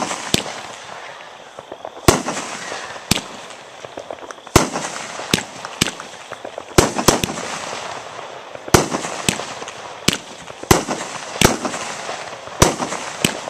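Aerial fireworks bursting overhead in a rapid series of sharp bangs, roughly one or two a second at uneven spacing, with a steady crackling hiss between the bangs.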